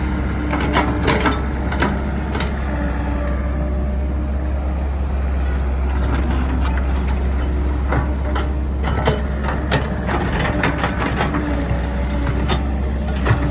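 CAT hydraulic excavator's diesel engine running steadily as the machine digs, with a faint whine that comes and goes and scattered sharp knocks and clanks from the bucket and arm working the mud.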